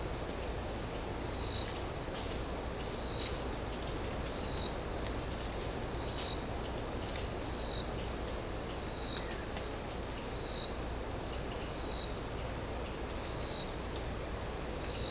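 Insects droning steadily at a high pitch, with a short, higher chirp repeating about every second and a half.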